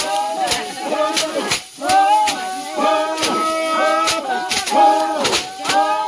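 Singing voices with held and gliding notes, over sharp clicks about twice a second.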